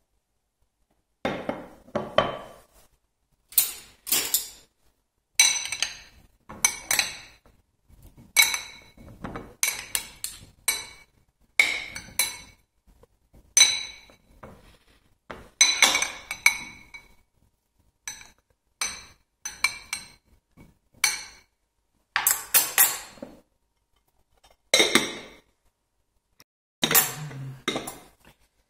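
Metal spoons clinking against a glass bowl as cooked baby potatoes are turned over, in irregular clusters of sharp, ringing clinks. Near the end the glass lid knocks back onto the bowl.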